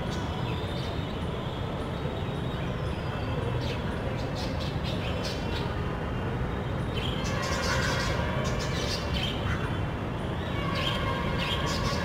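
Birds chirping and squawking in short calls, sparse at first and much busier from about halfway through, over a steady low rumble of background noise.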